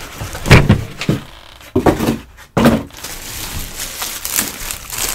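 Molded pulp packaging inserts lifted and set down with several dull thumps, then a plastic bag crinkling as it is handled around the unit.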